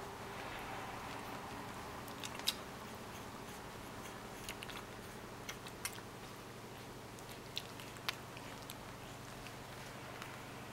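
Puppies suckling at their mother: scattered small, sharp clicking and smacking sounds, a dozen or so, over a faint steady hum.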